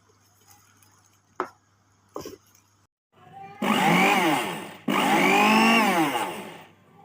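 A couple of knocks, then a 300 W countertop blender's motor run in two bursts. Each burst spins up and winds down again, with a brief stop between them.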